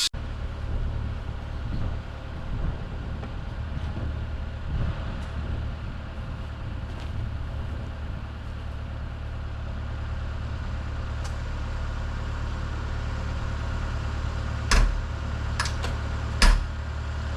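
Diesel engine of a compact construction machine running steadily at a low hum, with a few sharp knocks near the end.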